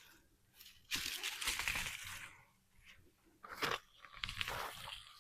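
Soil crunching and roots tearing as a sweet potato clump is worked loose and pulled up out of the bed: a long burst about a second in, then two shorter ones later on.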